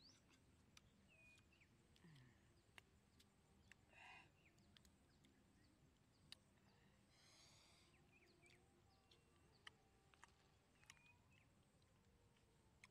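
Near silence with faint scattered bird chirps and a few small sharp clicks.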